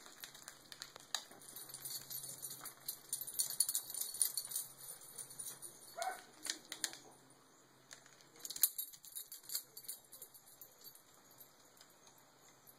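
Handling noise from a phone camera being moved about: scattered clicks and rustling, busiest around the middle, with a short squeak about six seconds in.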